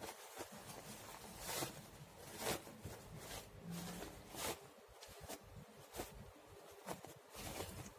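Light silky dress fabric rustling in short, irregular swishes as it is handled and turned right side out.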